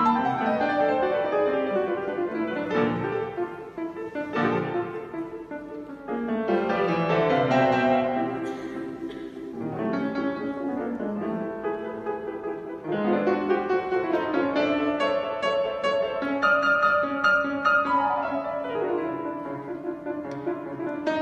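Solo grand piano playing a classical piece, with quick descending runs and chords.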